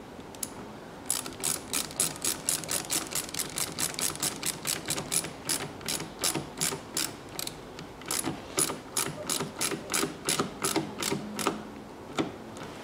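Ratchet tool clicking in a quick, even run as a hose clamp on a coolant expansion tank hose is tightened. There is a short pause about two-thirds through and one last click near the end.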